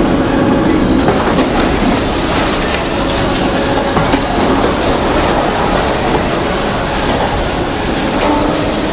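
Daewoo 255 LC-V tracked excavator's diesel engine running as its bucket tears into a building, with a steady clatter and scattered knocks of falling rubble and sheet metal.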